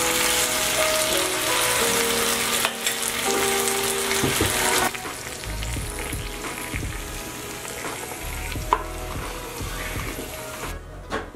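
Black pepper sauce sizzling on a preheated cast iron sizzling plate of steak, spaghetti and egg. It is loud at first and drops suddenly to a quieter hiss about five seconds in.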